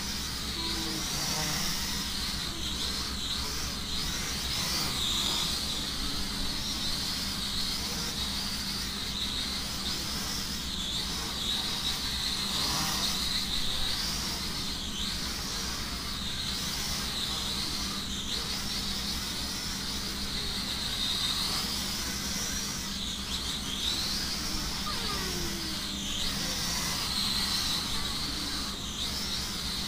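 Small indoor quadcopter's motors whining as it flies, the high pitch continually wavering up and down as the throttle and motor speeds change.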